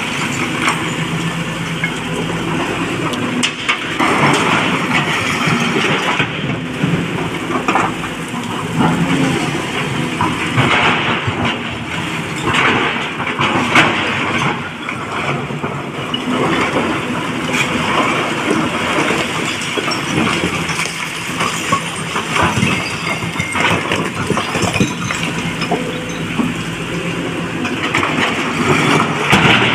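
SANY crawler excavator's diesel engine running under load while its steel bucket digs into and scoops broken quarry rock, stones scraping and clattering against the bucket and each other in irregular bursts.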